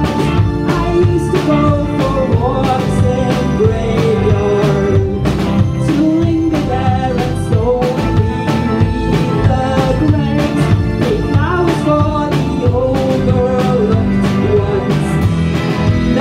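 Live indie pop band playing: a woman singing over electric guitar, bass guitar, keyboard and a drum kit keeping a steady beat.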